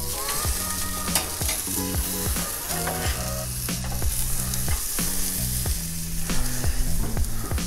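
Pork-neck gyros skewers sizzling steadily on a hot gas grill over direct heat, with background music underneath.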